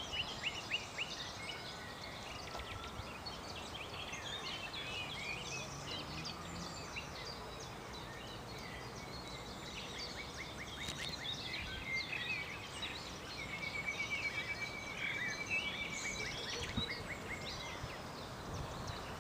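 Several songbirds singing and calling at once, a busy mix of short chirps and trills, with one even, rapid trill running for about two seconds past the middle, over a steady low background hiss.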